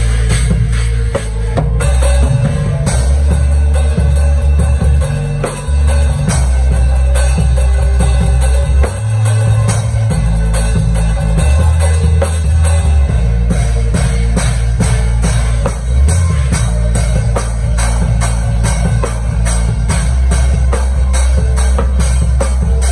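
Drum kit played live in a steady groove, with dense stick strokes on cymbals and snare, over music with a sustained bass line whose low notes change every few seconds.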